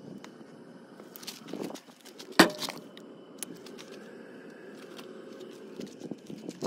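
Footsteps on gravel and handling rustle while walking along a semi truck, over a steady low background noise. One sharp knock about two and a half seconds in is the loudest sound.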